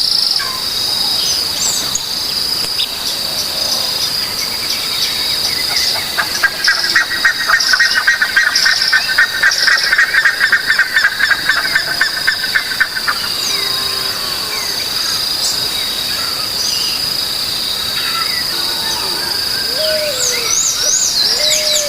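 Natural outdoor ambience: a steady high-pitched insect drone, joined in the middle by a rapid pulsing trill for about seven seconds, with scattered short bird chirps.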